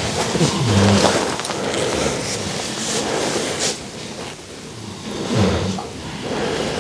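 Pigs grunting, two short low grunts about half a second in and about five and a half seconds in, over steady rustling and scraping.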